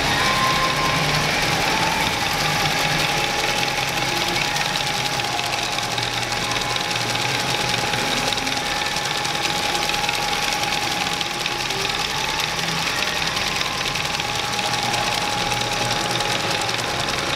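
Rope braiding machines running: a steady, rapid mechanical clatter of the bobbin carriers, with a steady high whine.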